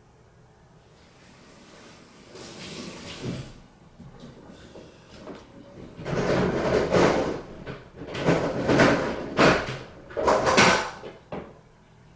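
Bathing noises from the bathroom behind the closed door: a run of irregular knocks and splashy bursts, louder and closer together in the second half, stopping shortly before the end.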